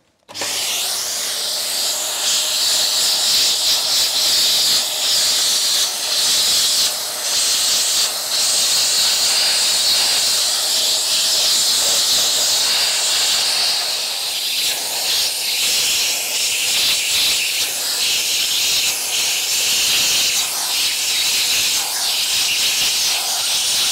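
Vacuum cleaner running with a crevice tool drawn along the seams of a leather car seat: a steady rushing hiss of suction that wavers as the nozzle moves, with a faint steady whine under it in the first half.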